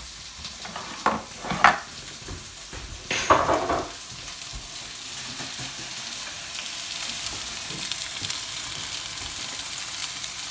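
Marinated chicken fillets sizzling in a hot frying pan in their own olive-oil coating. A few louder bursts come in the first four seconds, then the frying settles into a steady hiss.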